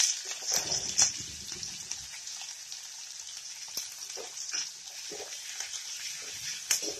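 Chopped green chillies and garlic sizzling in hot oil in a metal kadhai. The sizzle is loudest in the first second, then settles to a steady, quieter crackle. Near the end come a few sharp scrapes and taps of a perforated metal spoon stirring the pan.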